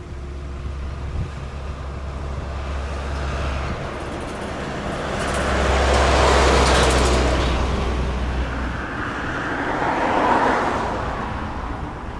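Jet engines of an AirAsia Airbus A320 on final approach, mixed with road traffic noise. The sound swells loudest about six seconds in and again about ten seconds in.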